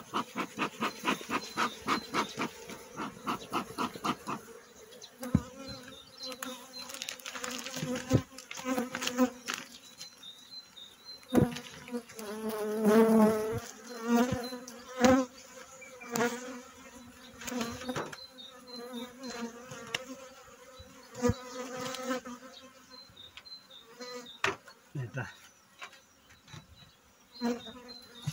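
Honeybees buzzing in a steady hum over an open hive. For the first four seconds a bellows smoker puffs about four times a second, then come crinkling of a plastic cover sheet and knocks as the hive is closed.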